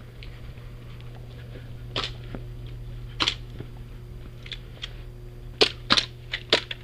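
Airsoft guns firing: sharp cracks, single ones about two and three seconds in, then a quick cluster of five or six near the end.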